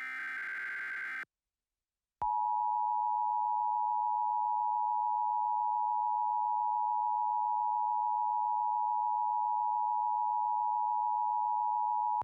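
Emergency Alert System tones: the last burst of a SAME digital data header, a buzzy warbling screech about a second long, then a second of silence, then the EAS attention signal, two steady tones sounding together for about ten seconds before cutting off.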